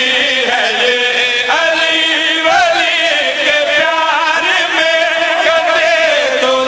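Male voices chanting a devotional Shia qasida in Urdu/Punjabi, a continuous melody with wavering, ornamented pitch.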